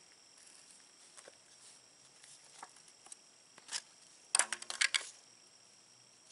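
Soft scattered clicks and rustles of soil and worms being handled, then, about four seconds in, a quick cluster of sharp taps and rustles as a small worm cup is shaken and tapped out over the soil-filled bin.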